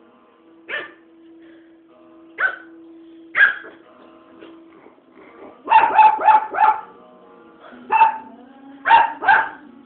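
Teacup puppy yapping in short, high barks, about ten in all, with a quick run of four near the middle, while playing with a cat.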